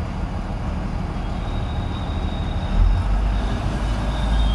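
New Holland TC5.30 combine harvester's diesel engine running with a steady low rumble that gets louder about three seconds in.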